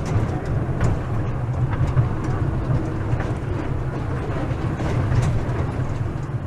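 A theme-park ride train running along, a steady low rumble with a few sharp clicks and clacks scattered through it.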